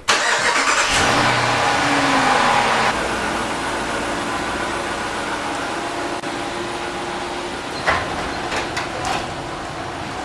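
Jeep Grand Cherokee engine starting, loudest for the first three seconds or so before settling into a steady idle as the SUV backs slowly out of the garage.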